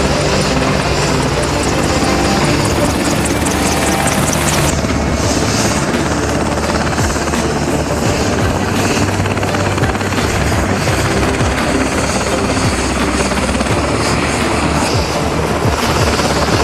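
AH-64 Apache helicopter flying, with steady rotor and turbine noise. The sound changes abruptly about five seconds in.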